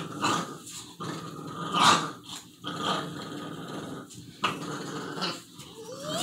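A dog growling in a string of rough bursts with short breaks between them, loudest about two seconds in.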